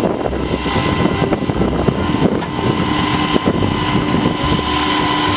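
Heavy rotator tow truck's engine running steadily, with a steady whine held over it.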